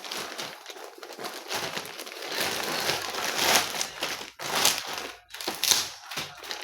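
Packaging crinkling and rustling as it is handled and pulled open, in irregular bursts that are loudest about halfway through and again a second or two later.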